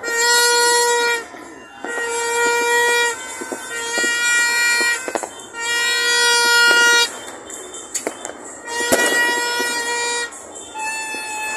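Horn blasts repeated again and again at one steady pitch, each lasting one to two seconds, with a shorter, higher-pitched blast near the end. Scattered sharp pops of fireworks come in between.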